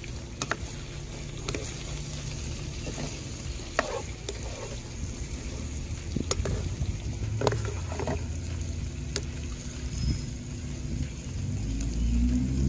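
Pan of curried sheep offal sizzling over a wood fire, a steady hiss broken by sharp pops about once a second. Near the end a spatula stirs the pan.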